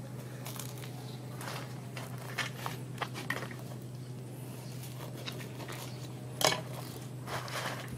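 A knife scraping the crust of a bread roll in short, irregular crunchy strokes, the loudest about six and a half seconds in, over a steady low hum.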